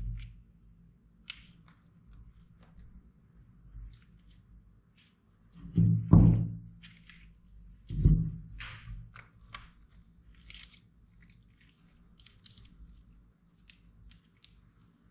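Slime being pressed and squished by hand, with scattered small crackling pops and two heavier low thuds about six and eight seconds in.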